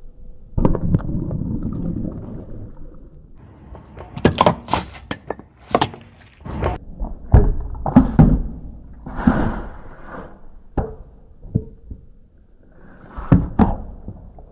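Car tyre rolling over and crushing things: a soft squelch about a second in, then a plastic jar full of liquid cracking under the tyre in a run of sharp cracks and thuds, and a spray of liquid hissing out. A few more single cracks follow near the end.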